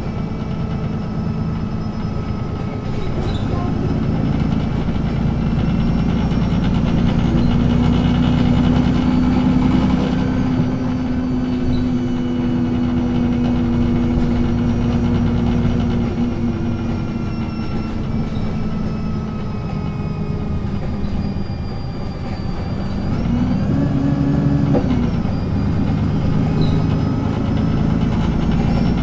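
Alexander Dennis Enviro200 Dart bus under way, its Cummins ISBe diesel engine driving through a Voith DIWA automatic gearbox. The engine note climbs over several seconds, holds steady, eases off, then rises and falls once more briefly near the end.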